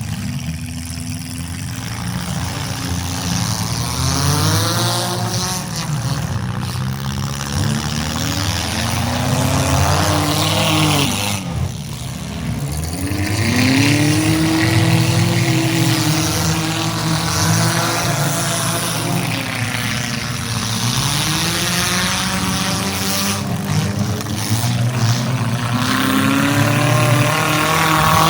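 Demolition derby cars' engines revving, their pitch rising and falling again and again, several at once.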